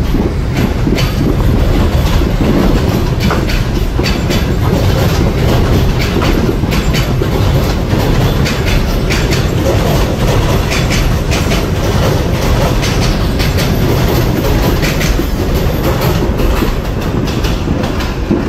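Subway train running past on an elevated steel structure: a steady rumble, with the wheels clattering over the rail joints.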